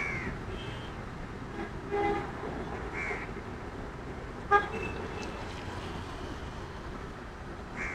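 Street traffic with short vehicle horn toots, one about two seconds in and a louder one about halfway through, over a steady traffic hum. A house crow caws a few times.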